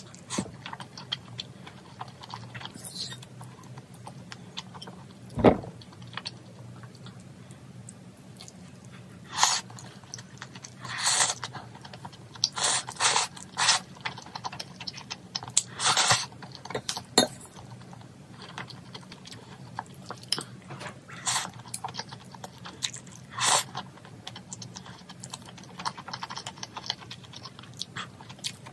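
Close-up mouth sounds of eating spicy cheese instant noodles: chewing, then repeated short slurps of noodles from about nine seconds in. One sharp knock sounds about five seconds in.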